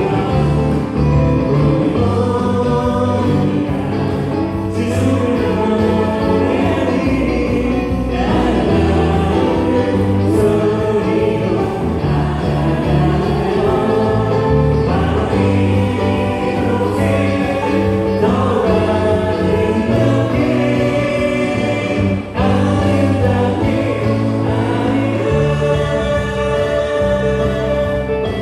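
Contemporary worship band playing a gospel song with a group of singers: Yamaha Montage 8 synthesizer keyboard and electric bass under choral singing.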